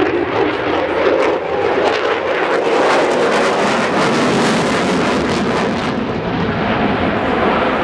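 F-35 fighter jet's single turbofan engine making a loud thrust noise with a ragged crackle. The crackle is strongest in the middle and eases near the end.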